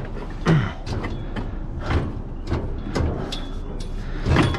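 Scrap metal on a loaded truck being shifted and settled by hand: a series of irregular knocks and clanks, about five in all, over a steady low rumble.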